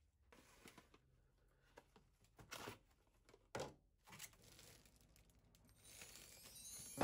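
Faint rustling and tearing of plastic cling film, pulled off the roll and pressed over a bowl in a few short bursts, then the crinkle of a plastic bread bag near the end.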